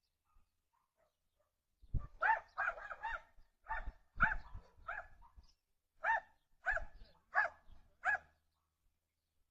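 A dog barking about a dozen times in quick, uneven bursts, starting about two seconds in and stopping a little after eight seconds.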